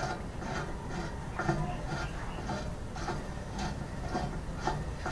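Light sharp clicks and taps, roughly two a second and unevenly spaced, from hands working the metal hose fittings on a trailer's air-brake relay valve, over a low steady background rumble.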